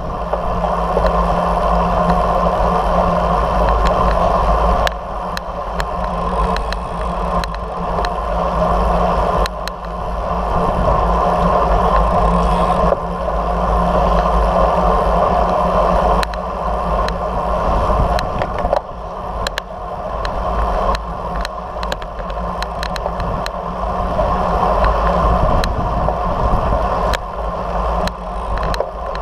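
Wind buffeting the microphone of a camera mounted on a moving road bicycle, over a steady hum of tyres rolling on asphalt. A few sharp clicks break through now and then, and the rumble dips in level several times.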